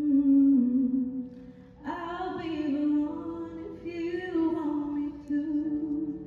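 A solo vocalist singing live into a microphone. A long held note slides down and breaks off about a second in, then a new phrase comes in about two seconds in, over faint sustained accompaniment.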